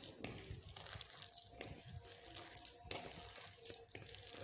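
A hand squishing and mixing a thick gram-flour batter with chopped potato and onion in a plastic bowl: faint, irregular wet squelches and soft scrapes.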